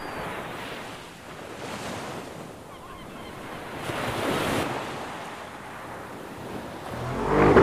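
Surf washing onto a rocky shore, a steady rushing wash that swells about four seconds in. Near the end a car engine, the Audi S4 Avant's, comes in loudly.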